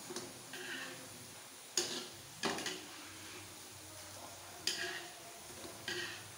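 Metal spatula scraping and knocking against a wok in about five separate strokes as caramel-coated saba banana slices are turned, over a faint steady frying sizzle.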